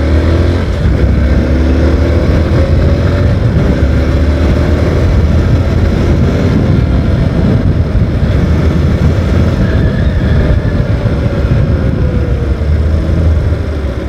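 Motorcycle engine accelerating, its pitch climbing several times in the first few seconds as it pulls up through the gears, then easing off later, over a heavy low wind rumble. Heard through a phone microphone inside the rider's helmet.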